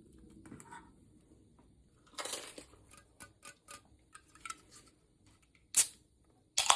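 Kitchen clatter of dishes and utensils: a short scrape-like burst, a run of light clinks and ticks, then two sharper knocks near the end.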